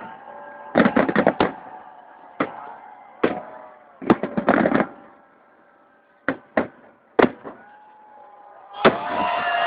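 Fireworks salute going off: a series of sharp bangs and crackles, some in quick clusters, thinning out around the middle. Near the end a loud bang is followed by a crowd starting to cheer.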